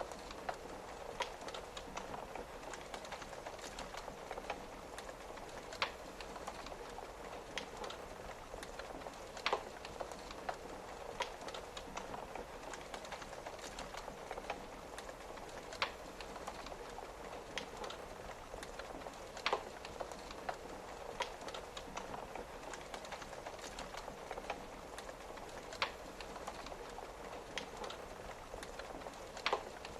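Wood fire crackling, with frequent small clicks and a louder sharp pop every few seconds, over a steady patter of rain on a window.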